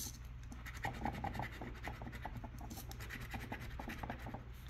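Scratch-off lottery ticket being scratched, with quick, repeated short scraping strokes.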